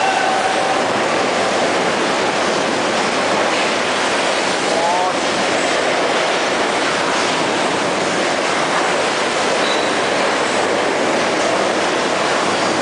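Steady, loud noise of heavy machinery: an even, unbroken din with no rhythm.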